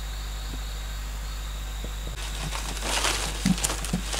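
A steady insect drone with faint regular chirps. About halfway through, it gives way to a palm frond and leaves rustling and crackling as they are laid over a pit trap.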